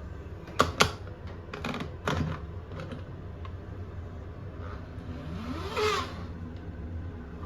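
Sharp clicks and clacks of die-cast toy cars and their plastic cases being handled, the two loudest a fraction of a second apart about half a second in and a few more around two seconds. Near six seconds comes a rising scrape.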